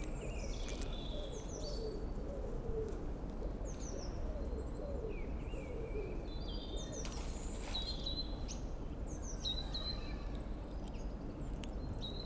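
Small songbirds chirping and whistling in short, high phrases, one after another, over a faint low rumble.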